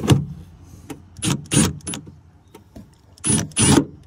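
Cordless impact driver run in about five short bursts, roughly in pairs, driving screws into a van's sheet-metal panel.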